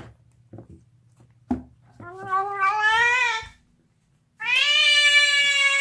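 Deaf domestic cat gnawing on a bone and yowling loudly. A few short clicks are followed by two long drawn-out yowls, the first rising in pitch and the second held steady. The owner thinks the cat's deafness may have something to do with the calls.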